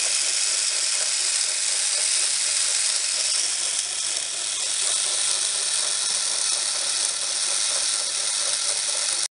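Battery-powered Plarail toy train motors and plastic gearboxes whirring steadily as two trains push head-on against each other, stalled with neither moving.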